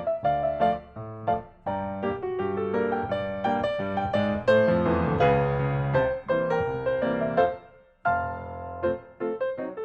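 Background music: piano or electric-piano melody with chords and a steady rhythm, breaking off briefly about eight seconds in.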